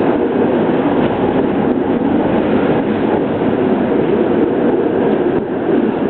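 PCC streetcar heard from inside the car, running along the track: a steady rumble of wheels on rail and running gear, loud and even throughout.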